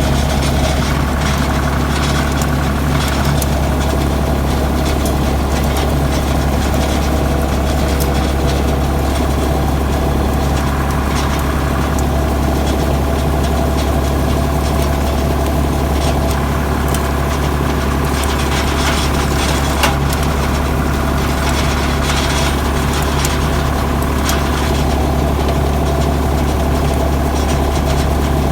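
Tractor engine running steadily at a constant speed, driving a PTO-powered rotary hay rake, with a deep unchanging hum and a few light clicks and rattles.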